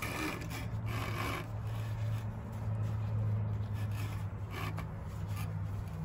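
Seat belt webbing being pulled out of its retractor and drawn across clothing: a rubbing, scraping rustle, strongest in the first second and a half, with a low steady hum underneath.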